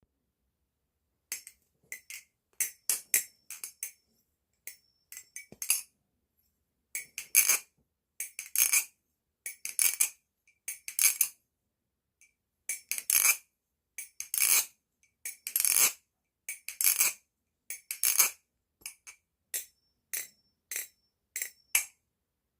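Ryworx GA balisong being flipped: quick metallic clacks and rattles as the handles swing around the blade and strike together, in clusters with short silent pauses between.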